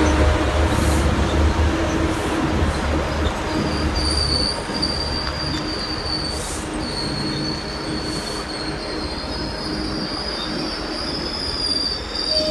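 Metrolink bilevel passenger coaches rolling past at track level with a high, steady wheel squeal that sets in a few seconds in. The leading F125 diesel locomotive's low engine drone fades away in the first few seconds.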